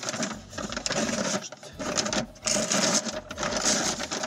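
A white mailing envelope being torn open and crinkled by hand, in irregular rustling and ripping bursts. Under it runs a steady hum.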